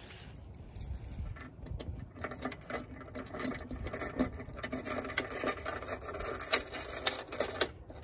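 A ring of keys jangling and clicking as a gloved hand works the ignition key into the snowblower's key switch, a dense rattle with sharp clicks that grows busier from about two seconds in and stops just before the end.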